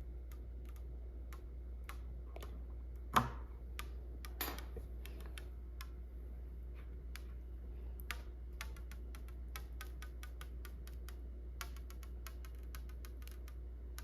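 Irregular light clicking and ticking as a plastic screen-protector film is lifted and repositioned on a flatbed scanner's glass, with a louder sharp tap about three seconds in and a smaller one a second later, over a steady low hum.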